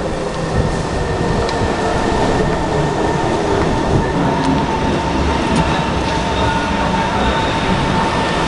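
Kawasaki C151 metro train coming into the platform and drawing to a stop: wheels rumbling on the rails with a steady whine over it.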